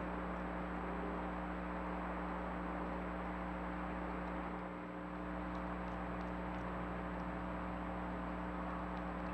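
Steady hiss of a trail camera's recording, with a constant electrical hum and whine running through it and a few faint ticks after the middle.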